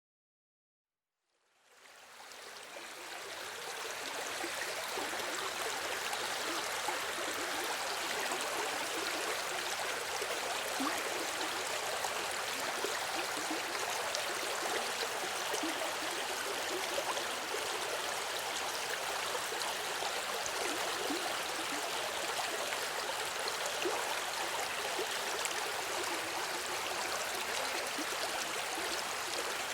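River water flowing steadily: a continuous rushing and babbling, with small splashes scattered through it. It fades in from silence over the first few seconds.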